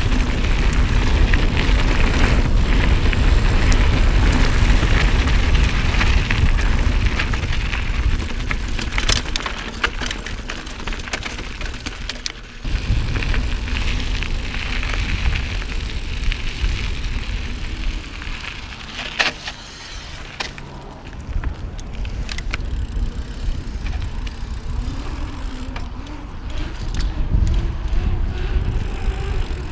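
Mountain bike on the move: wind rushing over the microphone and tyres rolling on dirt and then pavement, with a few sharp knocks along the way. A faint rising hum comes in near the end.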